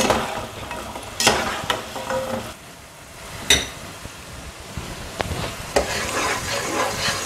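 A wooden spoon stirring sugar syrup boiling in a pot, with dough pieces sizzling as they fry in oil. A few sharp knocks of utensils against the pans, about a second in and near the middle. The syrup has not yet reached the one-string stage.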